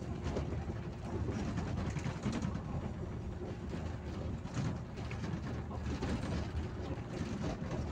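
Interior noise of a moving bus heard from the driver's seat: a steady low engine drone with road noise and occasional short knocks.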